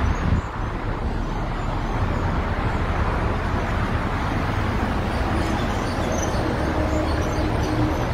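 Steady road traffic noise, with a brief bump right at the start and a faint steady engine hum in the second half.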